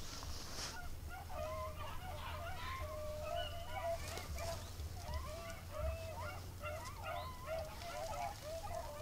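A pack of beagles baying and bawling, several voices overlapping without a break: the hounds are on a rabbit's scent and running the track.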